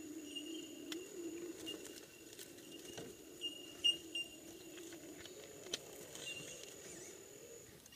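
Axial SCX10 RC rock crawler's brushless motor whining faintly as the truck crawls over boulders, its pitch wavering up and down with the throttle, along with scattered clicks and knocks of tyres and chassis on stone, the sharpest about four seconds in. The whine stops just before the end.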